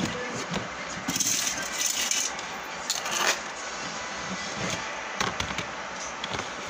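Rustling with scattered clicks and knocks. There are louder rustling stretches about a second in and again about three seconds in.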